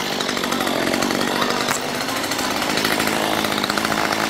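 Two-stroke chainsaw engine running steadily, held in the hand.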